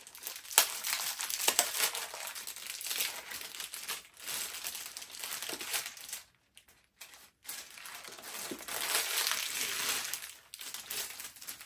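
Clear plastic packaging crinkling and rustling as it is handled and pulled open, in stretches with a short pause about halfway through and a couple of sharp snaps in the first two seconds.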